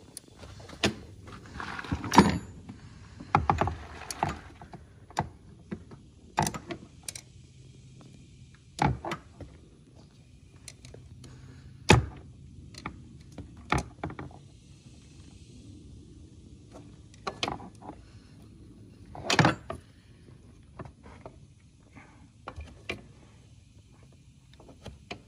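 Handling noise from fingers working small parts on an ATV carburetor while a rubber seal is pressed back onto the choke lever: irregular clicks, taps and short scrapes, with a few louder knocks spread through.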